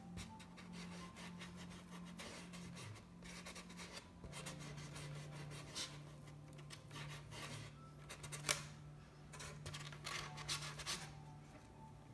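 A paintbrush dabbing and scratching on a painted board in quick, uneven strokes, with one sharper tap about two-thirds of the way through, over a steady low hum.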